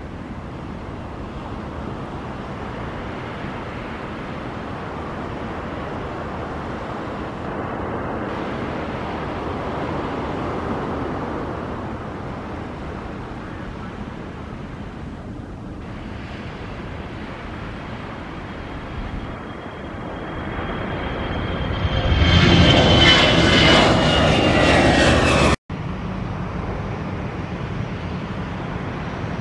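Jet airliner on its takeoff run: the engine noise builds to a loud roar with a high whine that falls slightly in pitch as it passes, then cuts off abruptly about three quarters of the way through, leaving a steady low rumble.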